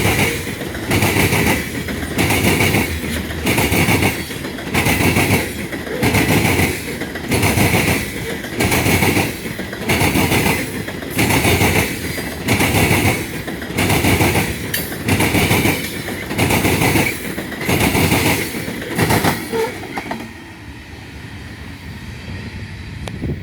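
Loaded coal train cars rolling past, their wheels clacking over the rail joints in a steady rhythm a little more than once a second. The clatter drops sharply about twenty seconds in, leaving a softer rumble.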